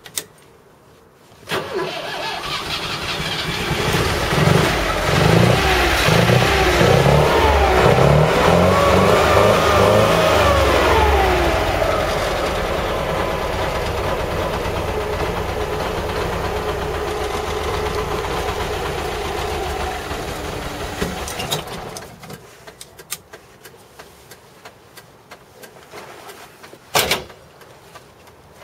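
LuAZ engine starting up, revved up and down several times, then running steadily for about ten seconds before it is switched off. A single sharp knock follows a few seconds later.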